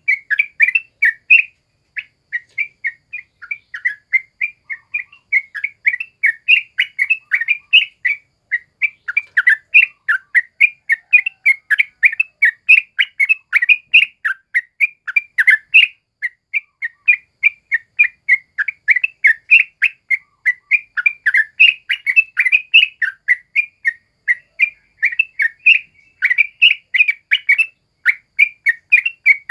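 Yellow-vented bulbul calling loudly in a fast, near-continuous stream of short chirping notes, several a second, with only brief pauses.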